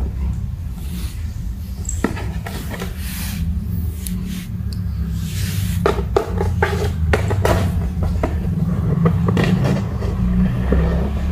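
Kittens pawing and scratching at a cardboard box: brief scrapes and scratches, several close together in the middle, over a steady low rumble.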